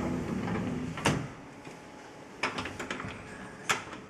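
Front door being locked by hand: a sharp click about a second in, a quick run of small clicks and rattles around the middle, and a louder click near the end as the lock is set.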